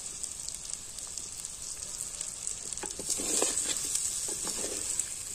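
Potatoes and spice paste sizzling in an oiled earthenware pot. From about three seconds in, a spatula stirs and scrapes against the clay.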